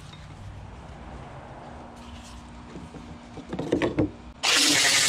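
Work gloves rustling as they are pulled on, with a few clicks near the end. Then an angle grinder starts abruptly, loud and steady, about four and a half seconds in.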